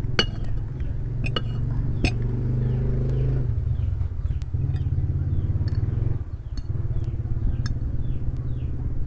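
A low, steady motor-like rumble with an even pulse, dipping briefly about six seconds in. A few sharp clinks of a glass with ice and of a fork on a glass plate sound over it, the first three in the opening two seconds.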